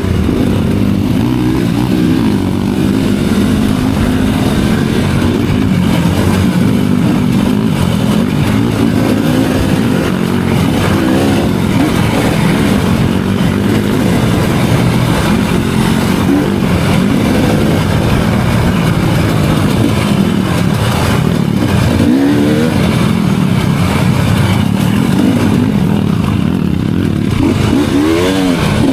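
Enduro dirt bike engine running steadily on a trail ride, the revs rising and falling briefly a couple of times, once about three quarters through and again near the end.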